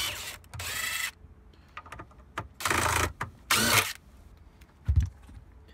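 Cordless drill whirring in short bursts, four times, as it backs the mounting screws out of a subwoofer enclosure, with scattered clicks between and a dull thump near the end.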